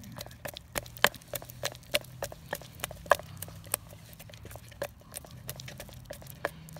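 Wooden stir stick stirring thick, lumpy silica-thickened epoxy in a plastic mixing cup, tapping and scraping the cup walls in irregular sharp ticks, several a second, over a faint low hum.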